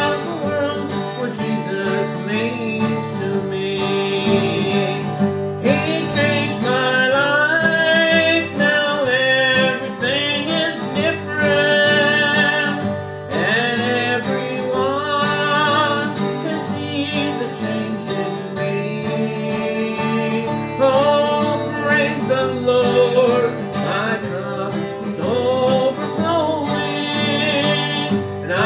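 Country gospel music with guitar, playing steadily without a break.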